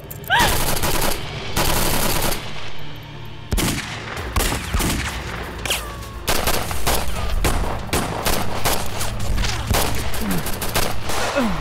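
Bursts of automatic gunfire, many rapid overlapping shots, growing denser about three and a half seconds in.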